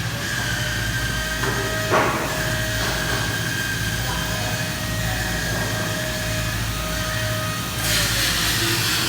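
A machine running steadily with a low hum and a held whine, a short sharp knock about two seconds in, and a louder hiss coming in near the end.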